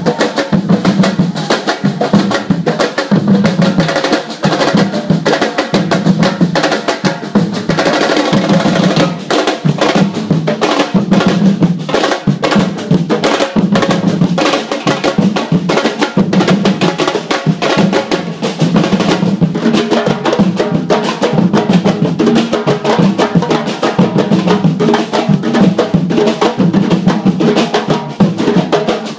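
Samba drum band playing together: many surdo bass drums beaten with two mallets each, with a snare drum over a fast, dense, continuous beat.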